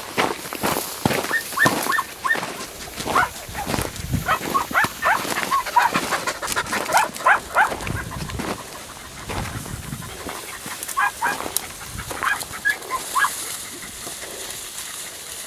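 Podenco Andaluz hunting dogs giving short, high-pitched yelping barks in quick runs while hunting rabbits, loudest in the first half and again briefly near the end. Under them, crackling and rustling of movement through reeds.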